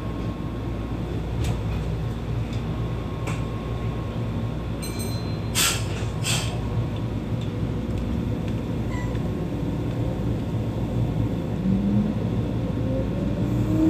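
Meitetsu 1800 series electric train pulling away and accelerating, with steady running rumble from wheels and running gear. Two sharp clicks come about six seconds in, and near the end the traction motor whine rises in pitch as the train speeds up.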